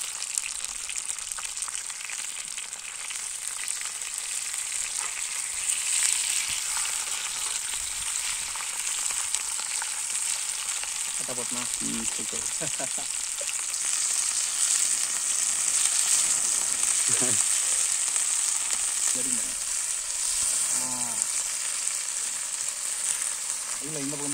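Masala-coated whole fish shallow-frying on a flat iron pan, a steady sizzle.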